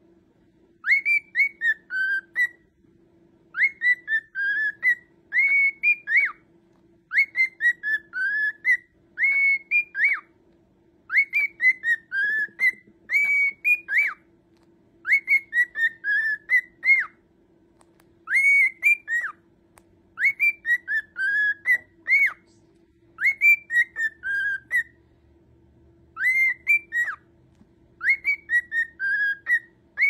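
Cockatiel whistling the same short tune over and over: a phrase of several swooping notes, repeated about every two seconds.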